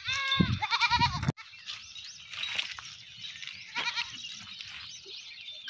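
Goats bleating: two loud, wavering bleats back to back at the start, then fainter, shorter bleats a couple of times later.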